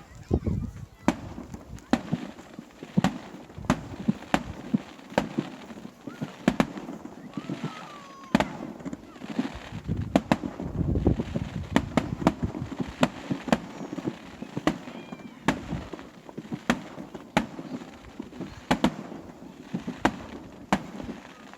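Fireworks display: a continuous run of sharp bangs, about one to two a second, over a low rumble of shell bursts.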